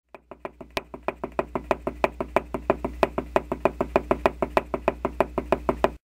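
Rapid, evenly spaced knocking, about six knocks a second, over a steady low hum; it stops suddenly near the end.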